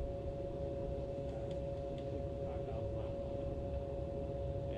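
Steady whine of a small electric motor on a bass boat, holding one even pitch, over a low rumble.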